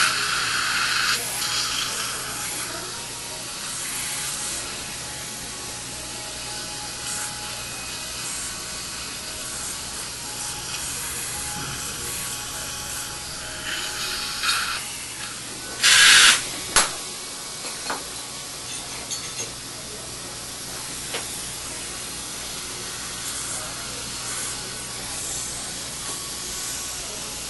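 Steady hiss of dental suction, with one short, much louder rush of air about halfway through, followed by a sharp click and a few faint ticks.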